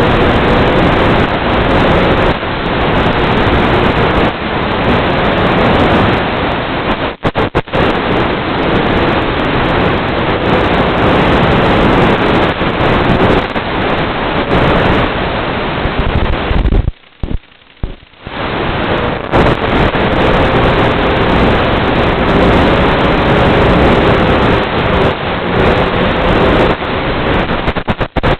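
Loud, steady rushing hiss carried on an FPV aircraft's analog video link audio, with a faint wavering hum underneath. It cuts out briefly about seven seconds in and again for about a second around seventeen seconds in.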